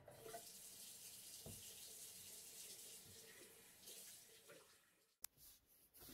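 Faint tap water running into a sink, as for washing the face, a steady hiss that fades out about five seconds in. A single sharp click follows, then a few faint rustles.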